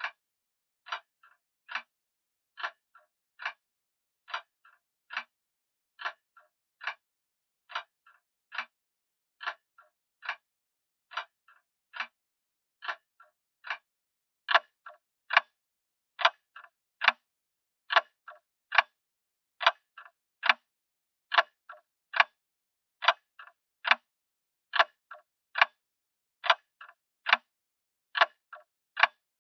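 Grandfather clock ticking steadily, slightly faster than once a second, each tick followed by a faint lighter click. The ticks become much louder about halfway through.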